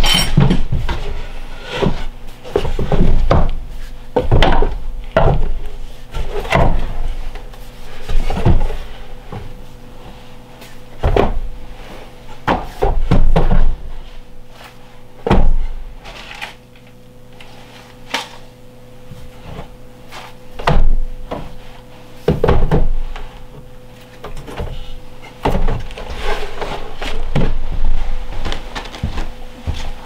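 Irregular wooden knocks and thumps as a slatted wooden crate is handled and set down on wood, over a faint steady hum.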